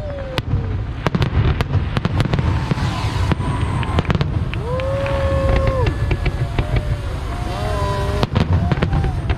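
Fireworks display: many sharp bangs and crackles in quick succession over a steady low rumble, with several whistling tones gliding up and down through it.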